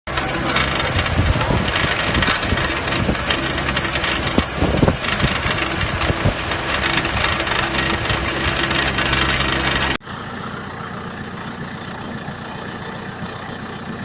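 Small tractor engine running steadily while pulling a single-row root-crop harvester through the field, with some clatter over the first few seconds. About ten seconds in the sound cuts abruptly to a quieter, steady engine running.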